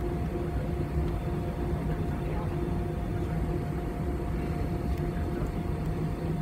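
Airbus A320 taxiing, heard from inside the cabin: a steady jet-engine hum over a low rumble, engines at taxi power with no spool-up.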